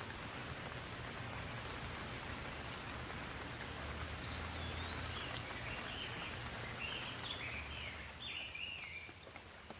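Steady rain hiss with a low rumble underneath. A bird calls in a quick run of short chirps from about four seconds in until near the end.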